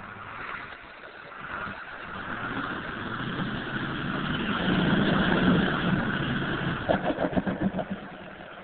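Ford pickup truck's engine revving as it pulls through deep mud, getting louder over the first five seconds and then easing off, with a fast pulsing stutter for about a second near the end.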